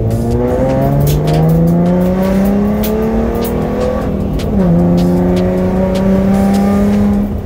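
The 3.7-litre Cyclone V6 of a freshly tuned 2014 Mustang drift car, heard from inside the cabin, revs up through a gear with its pitch climbing for about four seconds. Its pitch drops sharply at an upshift about four and a half seconds in, and it then runs on at a steadier pitch. Sharp clicks sound throughout.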